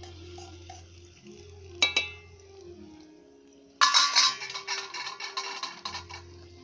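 A single metal clink about two seconds in. About four seconds in comes a sudden loud sizzle and crackle as ingredients hit hot oil in a steel kadai over a wood fire, thinning out over the next two seconds.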